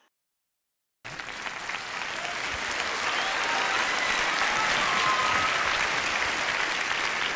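Large audience applauding. The applause cuts in abruptly about a second in, after a moment of dead silence, and builds louder over the next few seconds.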